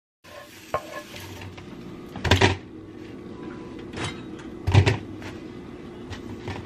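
Eggs sizzling in a frying pan while a utensil stirs and scrapes them against the pan, with two louder scrapes about two and a half and five seconds in.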